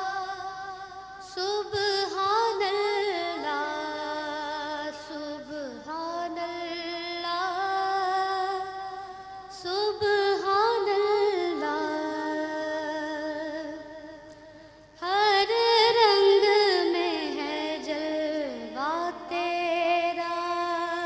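A young girl singing a hamd solo and unaccompanied into a microphone. She holds long notes with wavering melodic ornaments, in about four phrases with short breaks between them.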